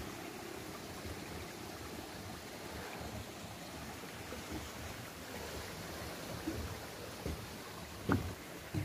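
Steady outdoor wash of wind and the sea breaking gently against the sea wall below. Two footsteps on the path near the end.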